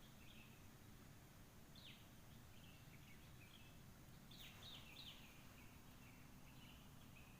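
Faint birds calling: scattered chirps, with a sharp downward-sweeping note about two seconds in and a quick run of three more around four and a half seconds in.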